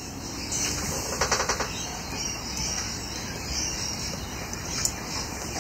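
Small handling clicks from a hand working among the wiring and switch contacts of an electromechanical pinball machine: a quick run of light clicks about a second in and a single click near the end, over a steady hiss.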